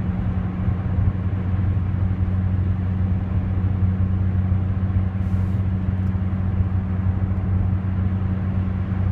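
Cabin sound of a C7 Corvette Z06 with a Katech carbon fiber exhaust cruising at about 70 mph in seventh gear. A steady low V8 hum without drone sits under the tyre and road noise, and the tyre noise is louder than the exhaust.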